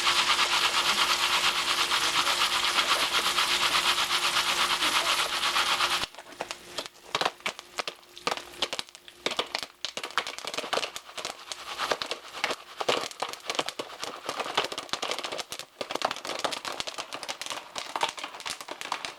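Popcorn cooking: a steady hiss with a low hum, then, after an abrupt cut about six seconds in, kernels popping in quick, irregular pops.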